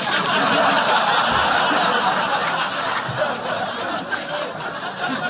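Audience laughing, a sustained wash of laughter that thins a little near the end.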